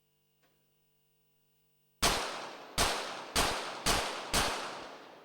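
Five quick shots from a .22 Short rapid-fire pistol, fired one after another about half a second apart as one five-shot series, each report followed by a fading echo.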